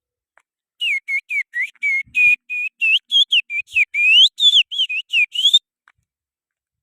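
Finger whistle, blown with the thumb and little finger, imitating the song of an Oriental magpie-robin (kacer). A quick run of short whistled notes, each bending up or down in pitch, starts about a second in and stops after roughly five seconds.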